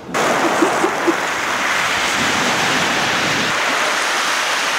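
Sea surf washing and breaking in the shallows: a steady, loud rush of water that starts suddenly just after the start.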